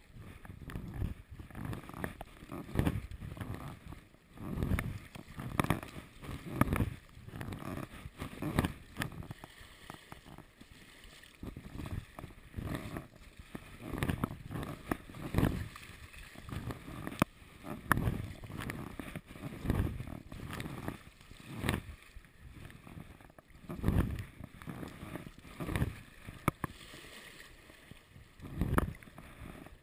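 Sea kayak being paddled through choppy water against a two-knot tide: paddle blades splashing and waves slapping the hull and deck in irregular surges every second or two.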